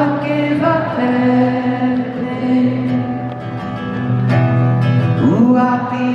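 Male singer performing live with acoustic guitar, heard from the audience at a concert: long held sung notes, with a swoop up into a note about five seconds in.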